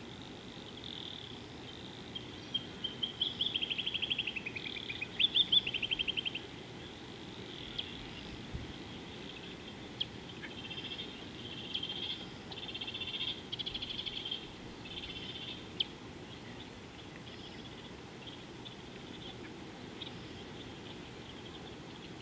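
Bird calling in quick, high trills and short chattering phrases, in two spells a few seconds in and again about ten seconds in, over a steady low hiss.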